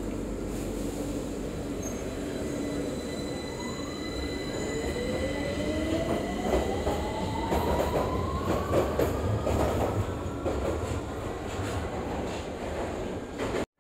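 A London Underground tube train pulls out of the platform. Its motor whine rises in pitch as it speeds up, over a low rumble, with rapid clicking of the wheels over the rails in the middle of the pull-away.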